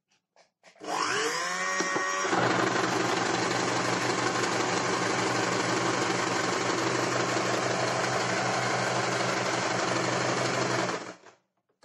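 Electric sewing machine starting up about a second in, its motor whine rising in pitch as it gets up to speed, then running steadily at full speed as it stitches seams in cloth, and stopping shortly before the end.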